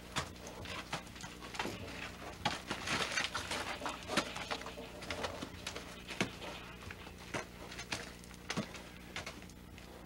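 Irregular knocks and scuffling as an unbroken draft horse struggles against its ropes while being handled for its feet, with the steady hum of an old camcorder underneath.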